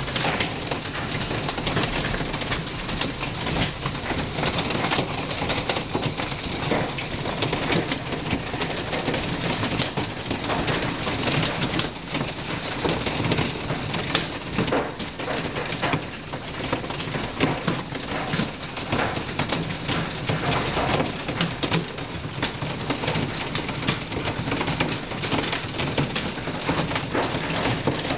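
Hail pelting down in a dense, continuous clatter of many small hits, golf-ball-size stones striking the yard, pool and house.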